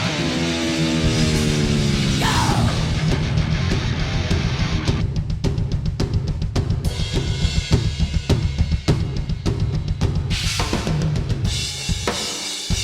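Thrash metal playback: a falling pitch slide opens it, then the full band with a fast drum kit, kick, snare and cymbals, over a steady low guitar and bass bed.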